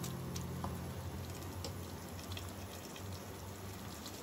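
Mutton curry with water added simmering in an open pot: soft sizzling and bubbling with scattered faint pops over a steady low hum.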